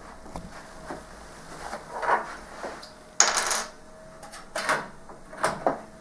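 Hard small objects being handled: a series of knocks and taps, with a sharp clink about three seconds in that is the loudest, like small metal pieces dropped onto a hard surface.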